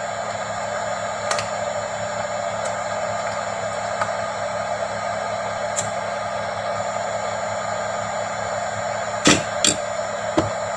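Small electric blower fan running steadily, blowing air through a hose onto a phone's logic board to cool it after soldering. It makes a constant airy rush with a low hum, and a few sharp clicks come near the end.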